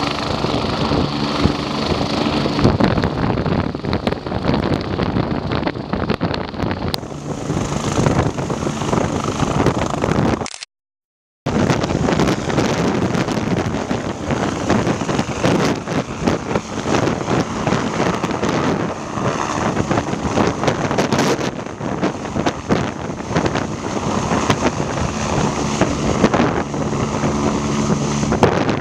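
BK 117 twin-turbine helicopter's engines and main rotor running at high power as it lifts off and climbs away overhead. The sound cuts out briefly, about ten seconds in.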